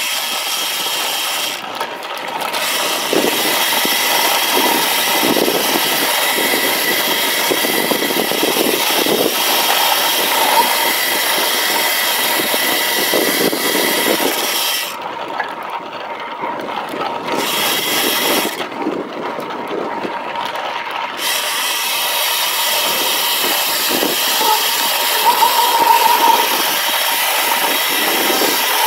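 Road bike rolling fast down a dirt fire road: a steady rough rumble and rattle of tyres over loose dirt and gravel and the bike shaking over the ruts. The high hiss drops away briefly twice around the middle.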